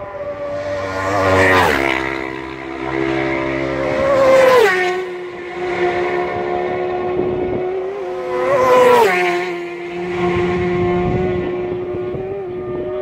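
Road-racing motorcycles passing at full speed three times, about one and a half, four and a half and nine seconds in, each engine's high scream dropping sharply in pitch as it goes by. A steady engine drone holds in between.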